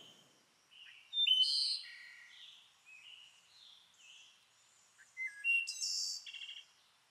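Songbirds singing: a run of short, varied chirps and whistles, loudest about a second in and again from about five seconds, ending in a quick trill.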